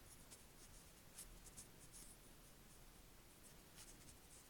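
Near silence: room tone with a few faint, short scratchy ticks.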